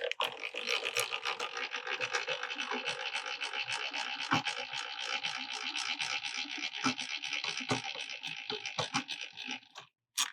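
Ridgid table saw's blade-height handwheel being cranked steadily, its gearing giving a rapid, even ratcheting whirr that stops abruptly near the end.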